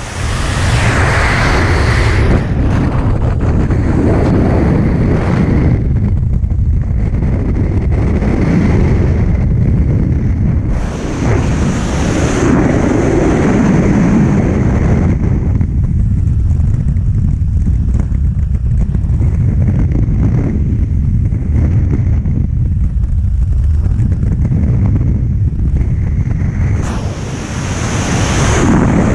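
Freefall wind rushing over the camera microphone during a tandem skydive: a loud, steady buffeting that swells and eases every few seconds.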